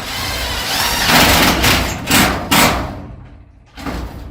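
Thumps and rattling of metal from work on a metal garage door, with two sharp knocks about two seconds in and another near the end.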